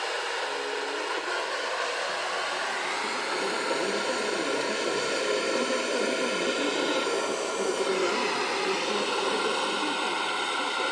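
Portable full-band radio receiver's loudspeaker hissing with steady FM static, tuned near 91.6 MHz to a signal too weak to carry a station clearly.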